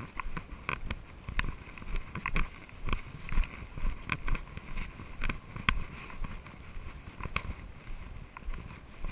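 Footsteps crunching on dry fallen leaves along a dirt trail, a regular walking rhythm, over a low rumble of the body-worn camera's handling noise.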